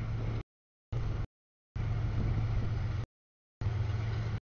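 Double-stack container freight train rolling past, a steady low rumble and hum that cuts out abruptly and returns several times as the audio feed drops out.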